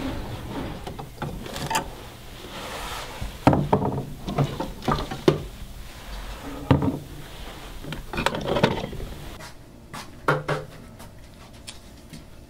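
Scattered knocks, taps and rubbing as objects are handled on a wooden desk, a trophy among them, in a small room.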